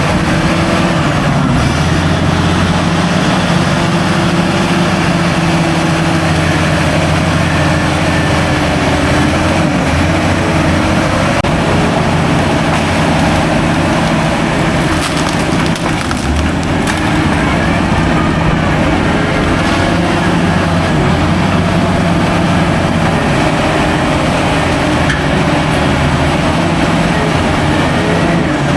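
Heavy diesel engine of an earthmoving machine running steadily, its pitch rising and falling slightly as the revs change under load.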